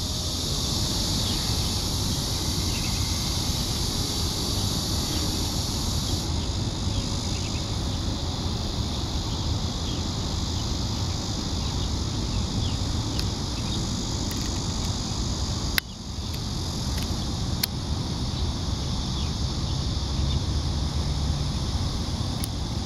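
Steady high chorus of field insects over a low wind rumble on the microphone, with a few sharp clicks, the loudest about two thirds of the way through.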